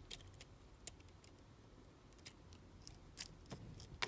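Faint, irregular clicks and small taps of a precision screwdriver and metal parts being worked inside an opened iPhone, driving the small screws that hold the front sensor and ear speaker bracket.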